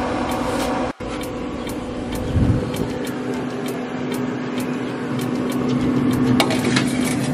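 Pit Boss pellet grill running at cooking temperature, its fan giving a steady hum with a whooshing haze. A low thud comes about two and a half seconds in and a sharp knock about six seconds in.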